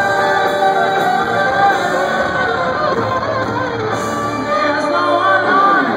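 Hard-rock band playing live, with electric guitar and a singing voice over the full band, loud and heard from the audience through a phone's microphone.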